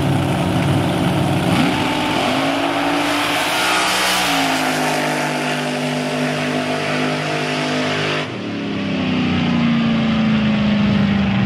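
Drag-racing cars at wide-open throttle on a quarter-mile pass. The engine note climbs over a couple of seconds, holds high, then falls away in pitch after about eight seconds.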